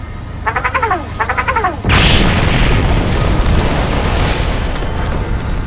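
Explosion sound effect: a sudden loud boom about two seconds in, followed by a long rumbling noise that slowly fades. Before it come two short warbling, pitched cartoon-style cries.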